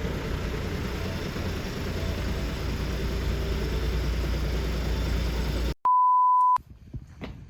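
Steady low rumble with hiss that cuts off abruptly near the end, followed by a short, loud, single-pitch electronic beep lasting under a second, then a few faint clicks.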